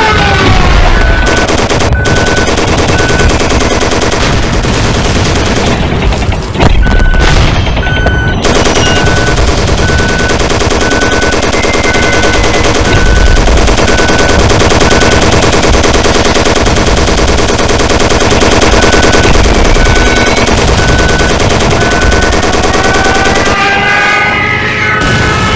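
Wartime alarm soundtrack: a dense, rapid crackle of gunfire runs throughout, while a short high beep repeats about three times a second in stretches. A siren glides down at the start and winds up again near the end.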